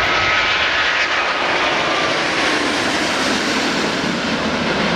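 Airbus A350-1000's Rolls-Royce Trent XWB-97 turbofans at take-off power during its departure: a loud, steady rush of jet noise with a faint whine sliding slowly down in pitch.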